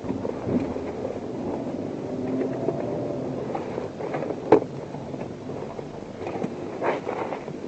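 Police squad car driving, heard from inside the cabin: steady engine and road noise. A few light clicks and knocks sound over it, the sharpest about four and a half seconds in.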